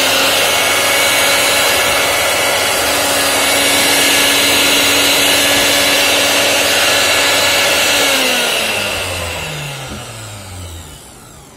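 Mixer grinder's brushed armature motor running at full speed with a steady high whine, then switched off about eight seconds in and winding down, its pitch falling until it stops about three seconds later.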